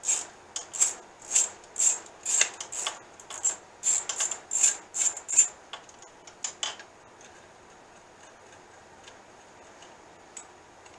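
A quick run of sharp metallic clicks, roughly three a second and somewhat uneven, from a hand tool working the steel fittings at the end of a small lathe-mill table. It stops about seven seconds in, leaving only a faint high hum.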